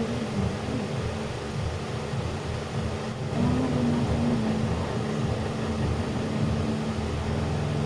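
Quiet, murmured talking between two people over a steady background hum.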